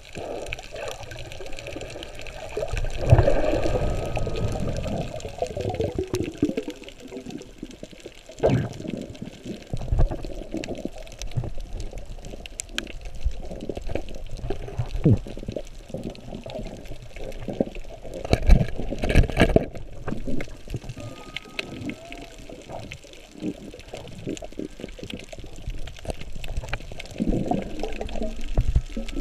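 Underwater water noise picked up through an action camera's waterproof housing as a freediver swims over a reef: muffled, irregular sloshing and bubbling, with a few sharp knocks about a third of the way in and twice again about two-thirds in.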